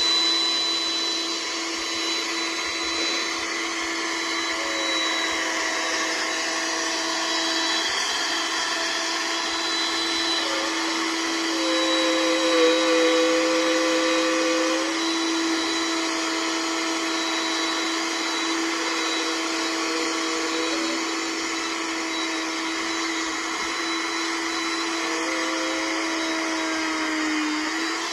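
Hitachi M12V plunge router running at full speed while milling a recess into a timber beam, a steady high motor whine with the cutting sound changing as the bit bites in, strongest around twelve to fifteen seconds in.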